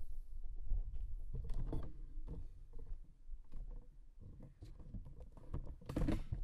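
Handling noise from a dropped camera being picked up and moved: scattered knocks, taps and rustling against the microphone over a low rumble, busiest near the end.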